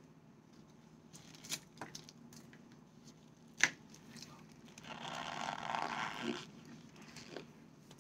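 Packed cornstarch being bitten and crunched: a few small crackles, one sharp snap about three and a half seconds in, then about a second and a half of dense, squeaky crunching.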